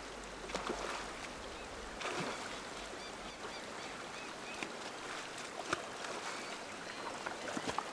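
Shallow river water running and splashing around a brown bear's legs as it wades and paws at a salmon, with a few sharp knocks and faint high chirps over the steady water noise.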